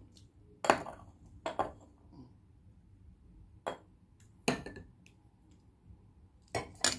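About six scattered sharp clicks and taps of hard objects knocking against tableware. The loudest come near the start, about four and a half seconds in, and in a close pair near the end.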